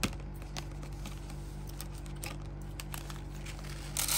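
Faint crinkling and ticking of a plastic rice pouch being handled over a steady low hum, then a louder rustle starting near the end as the pouch is tipped to pour out the rice.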